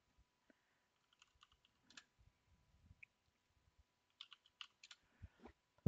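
Faint computer keyboard typing: a few scattered key taps, in small clusters about a second in and again about four seconds in.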